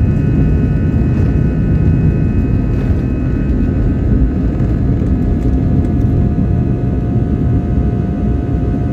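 Steady loud rumble of a passenger airliner's engines and airflow heard inside the cabin, with faint steady whining tones above it; one whine becomes clearer about halfway through.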